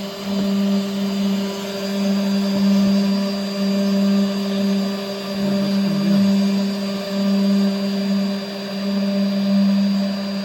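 Genmitsu 3020 PRO MAX V2 CNC router's spindle running steadily with a low hum, its 1/4-inch upcut bit milling MDF.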